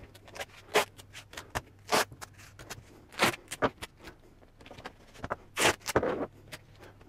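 Yellow masking tape being pulled off the roll in short rips and torn off, the strips pressed down across MDF panel joins, several times over. A faint steady low hum runs underneath.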